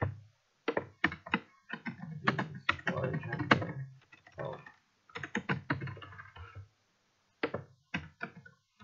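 Typing on a computer keyboard: quick runs of keystrokes with brief pauses between them.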